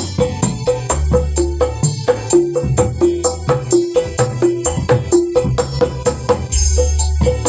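Kendang (Indonesian hand drum) played in a quick, even dangdut koplo rhythm, about four strokes a second, many of them ringing at a clear pitch. It plays over a music track with a steady bass line, and a bright cymbal-like wash comes near the end.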